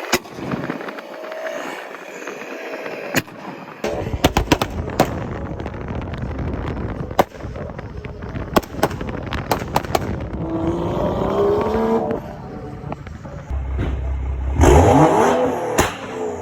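Straight-piped BMW M235i with a turbocharged N55 straight-six, its exhaust crackling and banging in a string of sharp pops. The engine climbs in pitch around the middle and is at its loudest near the end, where the pitch drops away.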